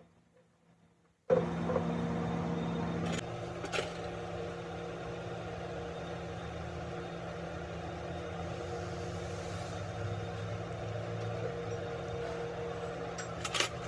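Rebuilt heavy diesel engine running steadily at an even speed, cutting in abruptly after about a second of near silence, with a sharp click near the end.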